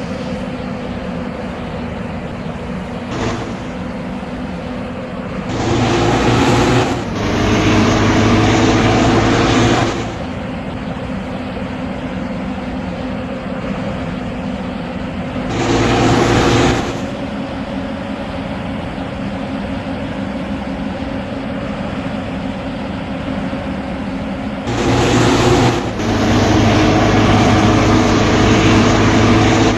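Large diesel bus engine idling steadily, with louder stretches of revving or pulling away about six seconds in, again around sixteen seconds, and from about twenty-five seconds on.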